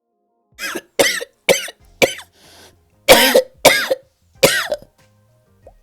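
A person coughing: about seven coughs in a row, with a short pause in the middle.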